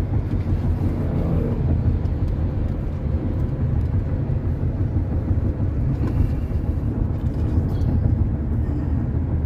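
A car driving along, with a steady low rumble of road and engine noise heard from inside the cabin.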